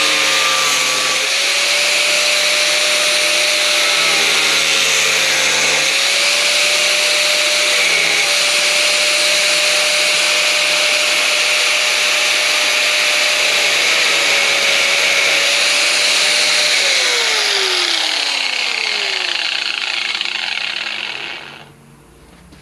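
Angle grinder with a cutoff wheel running at a steady high pitch while cutting through a fiberglass car bumper, with a loud grinding noise. Near the end it is switched off and its whine falls in pitch as the wheel winds down to a stop.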